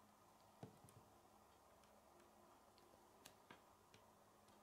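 Near silence broken by a few faint, sharp clicks of K'nex plastic pieces being handled and pressed together, the clearest a little over half a second in.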